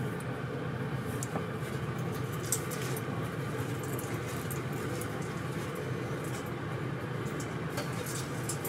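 Steady low hum of background machine or room noise, with a few faint clicks.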